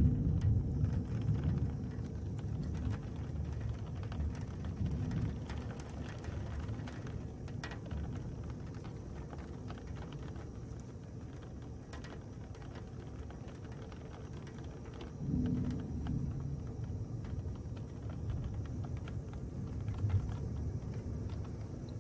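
Heavy rain falling steadily in a thunderstorm. A rumble of thunder dies away over the first few seconds, and another short rumble comes about two thirds of the way through.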